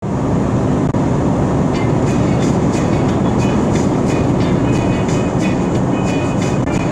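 Steady low rumble of a vehicle moving along a road, heard from inside it. From about two seconds in, repeated short clicks and faint squeaks sound over the rumble.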